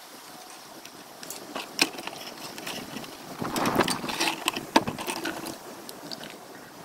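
Plastic basin and plastic bottle being handled on concrete: scattered knocks and clicks, with a stretch of scraping and rustling about halfway through.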